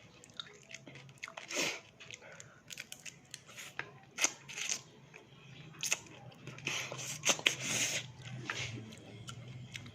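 Close-up chewing and biting of crispy fried fish with rice: irregular sharp crunches and wet chewing, with the loudest crunches about four seconds in and again around seven to eight seconds. A faint steady low hum runs underneath.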